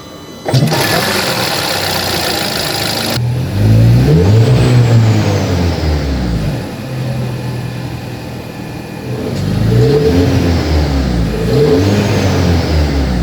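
Volkswagen Passat's turbocharged four-cylinder petrol engine running, then revved up and back down twice, about four and ten seconds in.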